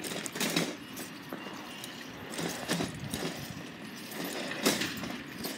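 Footsteps on a concrete sidewalk, a string of short irregular steps and scuffs.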